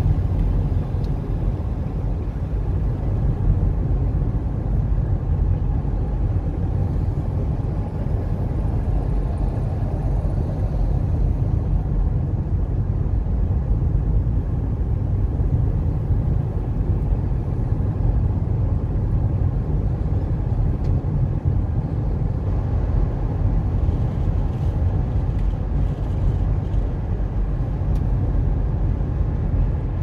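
A car driving at steady cruising speed, heard from inside the cabin: a steady low rumble of tyre and engine noise.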